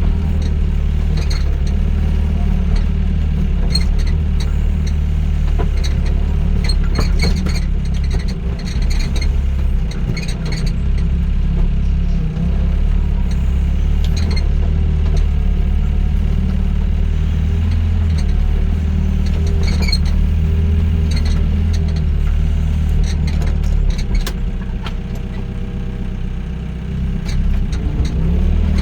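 Doosan DX55 mini excavator's diesel engine running steadily at working revs, easing off briefly a few times. Scattered short metallic clanks and clicks come from the machine at work.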